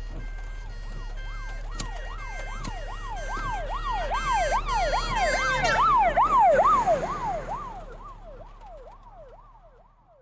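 Emergency-vehicle siren wailing rapidly up and down, about two sweeps a second, over a low rumble; it swells to its loudest around six to seven seconds in and then fades away as it passes.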